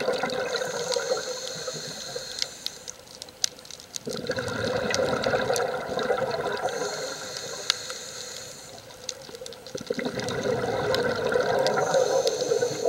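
Scuba diver breathing through a regulator underwater. Bursts of exhaled bubbles come about every five to six seconds, three times, with a quieter high hiss in between.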